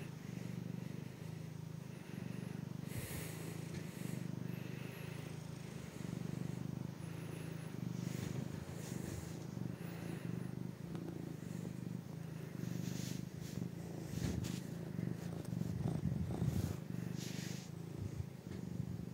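Black-and-white domestic cat purring steadily in a low, even rhythm while being stroked, with a few brief soft rustles in the second half.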